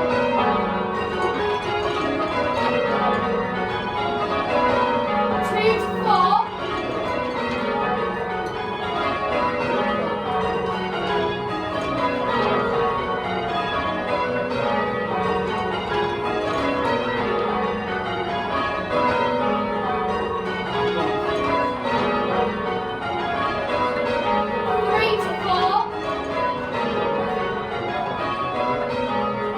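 A ring of ten John Taylor-cast church bells rung full-circle in rounds and call changes. Rows of strokes step down in pitch from treble to tenor and repeat at a steady even rhythm.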